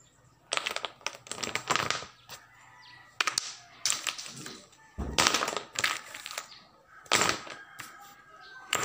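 Wooden dominoes clacking against each other in five or six short bursts as a hand gathers and slides fallen pieces across a tablecloth.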